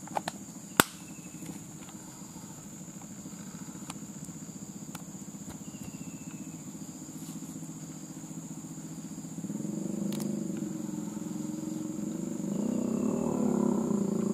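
A small engine running with a low steady drone, getting louder about nine and a half seconds in and again near the end, its pitch rising and falling. A sharp click comes near the start, over a steady high thin whine.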